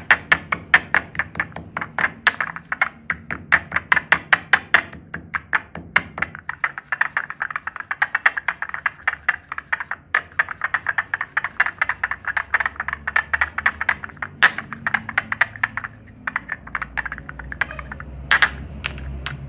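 White stone pestle pounding and grinding dry chalk powder in a stone mortar: quick gritty taps, about four a second, with three sharper clacks of stone on stone.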